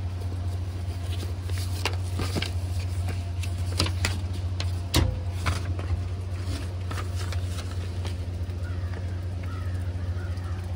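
Steady low hum of an idling vehicle engine under scattered clicks, taps and paper rustles as envelopes are pulled from a metal fee box. One sharper knock about halfway through is the loudest sound.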